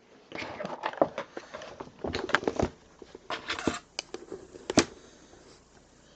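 Close-up rustling and handling noise, broken by several sharp clicks and taps.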